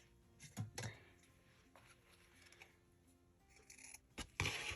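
Faint background music with soft held notes, with short rustles of paper being handled about half a second in and again, louder, near the end.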